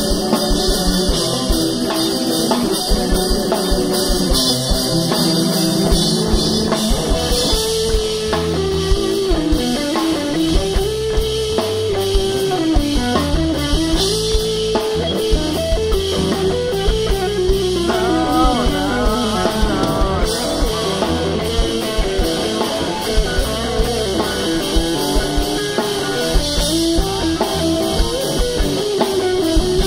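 Live rock band playing an instrumental passage: a Stratocaster-style electric guitar and a drum kit, with a melody line that bends and slides in pitch and a quick run of notes about two-thirds of the way through.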